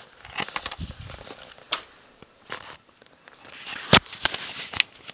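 Clicks and knocks of a camera stand giving way as the camera tips over, with one heavy thud about four seconds in and a few sharp clicks after it.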